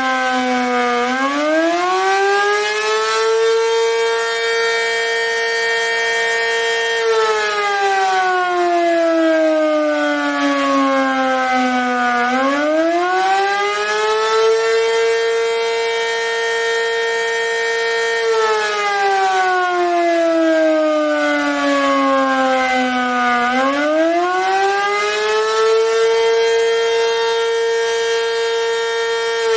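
ACA Banshee 115 outdoor warning siren sounding the attack signal: a slow rising and falling wail. Each cycle climbs quickly, holds its high note for a few seconds, then sinks slowly back down. Three rises are heard.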